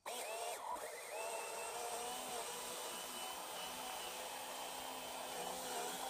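Small 12-volt electric transfer pump running with a steady motor whine, pumping automatic transmission fluid through plastic tubing; its pitch dips slightly a couple of times.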